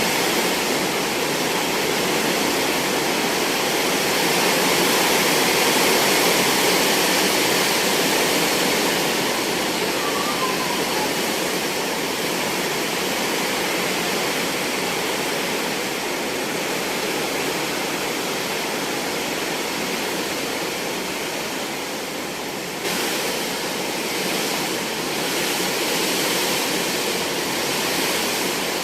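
Heavy rain driven by strong wind: a dense, steady hiss that swells and eases slowly, with a sudden step up in level late on.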